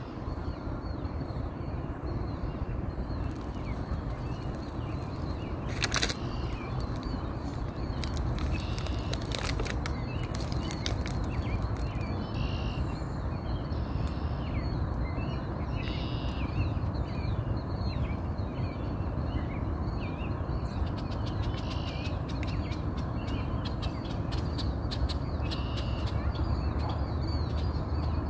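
Swans preening: runs of quick feather rustles and clicks over a steady outdoor rushing noise, with scattered calls of other birds in the background.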